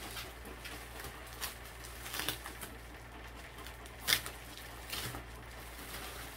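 Plastic wrapping crinkling and rustling as it is pulled off a book, in scattered crackles, the sharpest about four seconds in.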